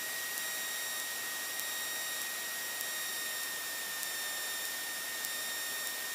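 Steady electronic hiss with a thin, unchanging high whine: the noise floor of the cockpit intercom and radio audio feed, with no engine sound coming through.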